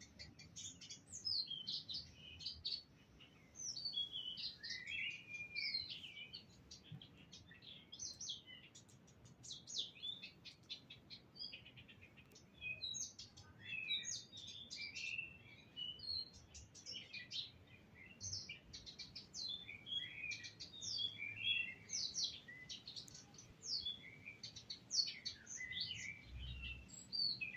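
Several songbirds chirping and singing at once: a busy, unbroken chorus of short, high, overlapping notes and quick trills.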